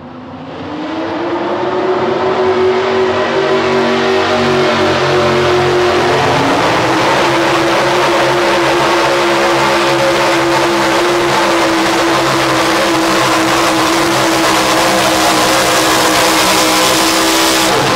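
Pro stock four-wheel-drive pulling truck's engine at full throttle under the load of a pulling sled. Revs climb over the first couple of seconds, step up about six seconds in, then hold steady at high revs.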